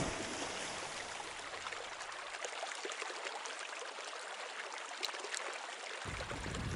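A steady, even hiss with faint scattered ticks through it, and a low rumble that comes in near the end.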